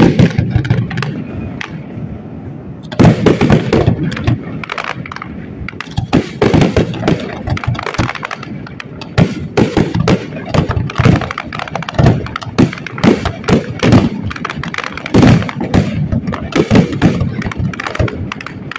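Aerial fireworks bursting overhead in quick, irregular succession, a mix of sharp bangs and crackling, fewer for the first few seconds and then dense and loud from about three seconds in.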